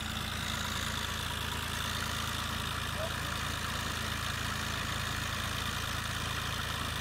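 Small farm tractor's diesel engine running steadily at low revs while it pulls a loaded manure trailer slowly.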